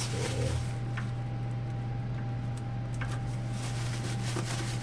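A steady low electrical hum with a thin, steady high whine above it, and a few light clicks from parts being handled.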